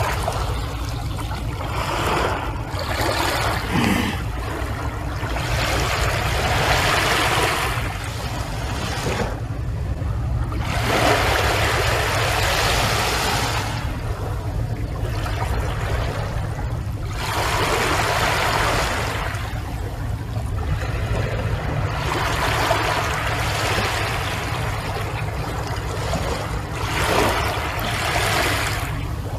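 Small waves washing onto a sandy shore, the surf swelling and fading every four to five seconds over a steady low rumble.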